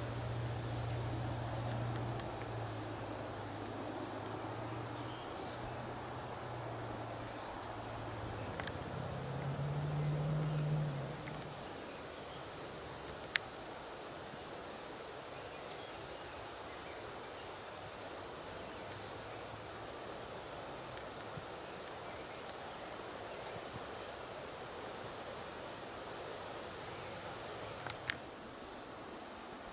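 Outdoor ambience. A low steady hum steps up in pitch and stops about eleven seconds in. After that, faint short high chirps repeat about once a second, with a sharp click twice.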